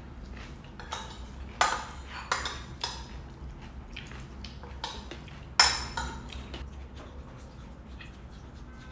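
A metal fork clinking and scraping against ceramic plates as food is picked up. There are a handful of sharp clinks, the loudest about five and a half seconds in.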